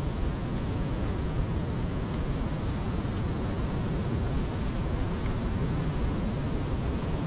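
Steady wind noise on the microphone: an even, low rumbling hiss with no separate events.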